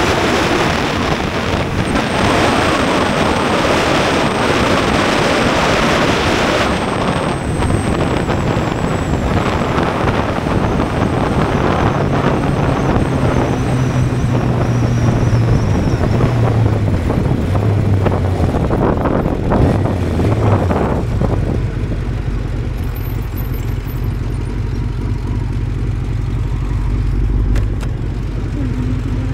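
Honda CBR600F inline-four engine under heavy wind rush at riding speed. The wind dies down as the bike slows, the engine note wandering, and from about two-thirds of the way through the engine idles steadily.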